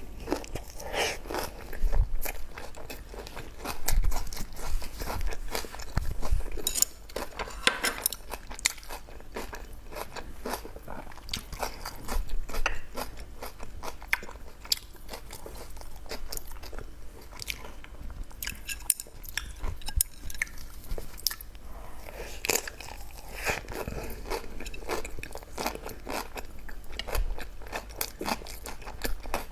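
Close-miked eating: crunchy bites and chewing, loudest in the first eight seconds, then steadier, softer chewing with small crackles.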